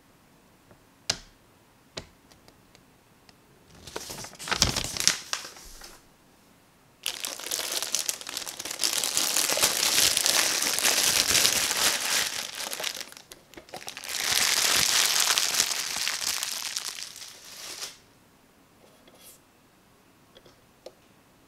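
Clear plastic bag crinkling as it is pulled off a small plastic Super Mario question block lamp. The crinkling comes in two long stretches with a brief pause between them, after a shorter bout of rustling about four seconds in.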